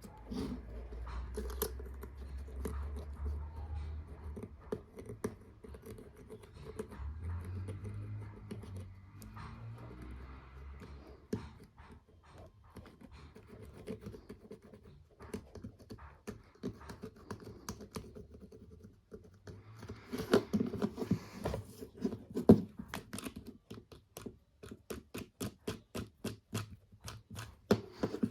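Small clicks and scraping from hands working on a mobile phone, with a quick, even run of clicks in the last few seconds.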